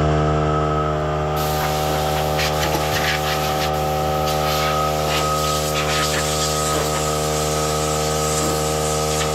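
An air compressor running steadily, joined from about a second and a half in by a hiss of compressed air from an air-hose blow gun, blowing dust off a rusty steel tractor seat pan.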